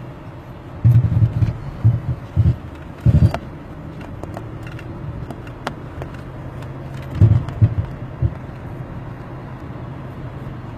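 Car cabin noise while driving: a steady low road and engine rumble, with a few brief low thumps about a second, three seconds and seven seconds in.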